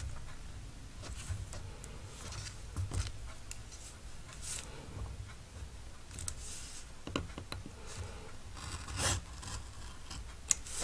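Craft knife drawn along a metal ruler, slicing through lightweight kraft paper on a cutting mat: a few short, faint scratchy strokes with light rubbing between them.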